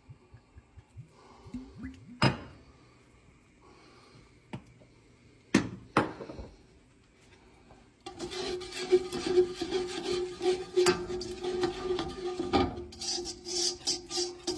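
A spatula scraping and stirring flour and oil into a roux in a stainless steel pot. A few separate knocks against the pot come first, then from about halfway a continuous scraping of strokes across the pot bottom.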